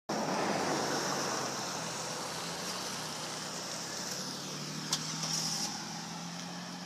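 Ford Windstar minivan pulling out and driving away: a steady engine and tyre hum that fades slowly as it goes. A single sharp click about five seconds in.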